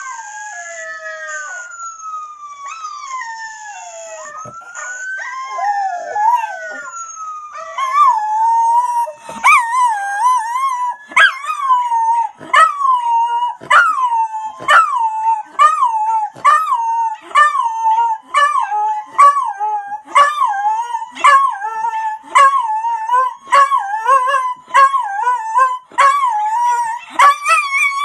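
Miniature schnauzer howling. It starts with long howls that rise and fall in pitch, then from about eight seconds in it goes over to a steady run of short, loud yowls, one or two a second.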